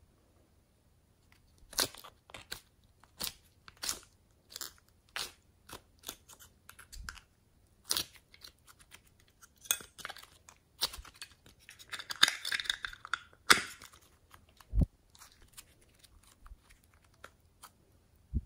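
Hands squishing and pulling soft clay off a clear plastic mold: a string of sharp crackly squelches and clicks, densest about twelve seconds in, with a dull thump a little later.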